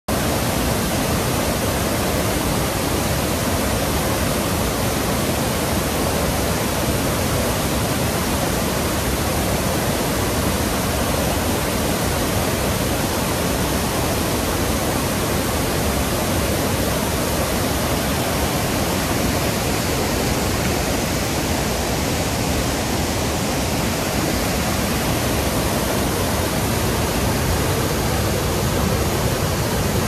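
Waterfall cascading as white water over boulders: a loud, steady, unbroken rush of water.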